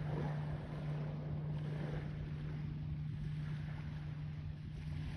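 An engine running steadily: a constant low hum with a rushing noise above it.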